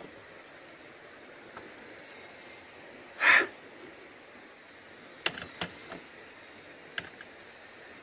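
Footsteps crunching on dry leaf litter along a forest trail: a handful of light crackles and snaps in the second half, over a faint steady background hiss. A short, loud whoosh close to the microphone about three seconds in is the loudest sound.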